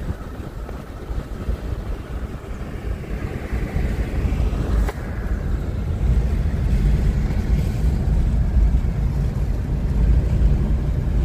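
Car driving along a highway, heard from inside the cabin: a steady low road and engine rumble with wind noise, growing louder from about halfway, and a brief click about five seconds in.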